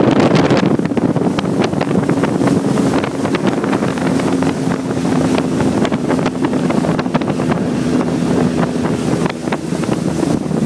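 Motorboat under way: the engine runs steadily beneath rushing, splashing water off the hull, with wind buffeting the microphone.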